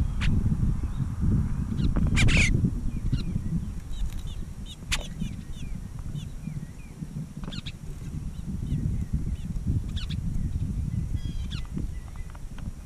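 Small birds chirping in short, scattered calls over a steady low rumble of wind on the microphone.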